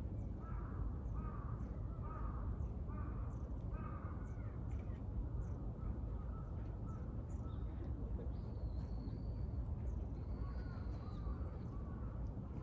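A crow cawing, a quick series of harsh calls in the first few seconds and fainter caws later. Short high whistles and chirps of smaller birds come in near the end, over a steady low rumble.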